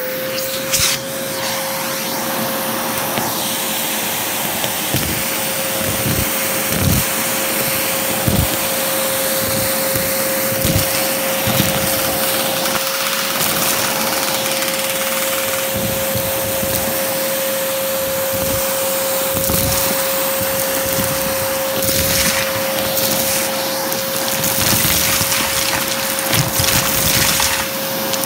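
Vacuum cleaner running steadily with a high, even whine over its rushing suction, with scattered light knocks as the attachment tool works over a pile of spilled debris on carpet.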